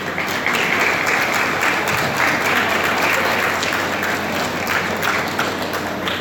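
Audience applauding: many hands clapping together, which thins out near the end.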